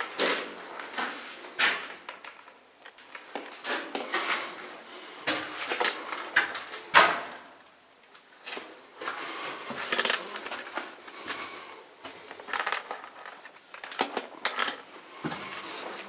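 Footsteps crunching and scuffing on a gritty concrete floor and stairs in a concrete bunker passage, an uneven run of crunches, knocks and scrapes.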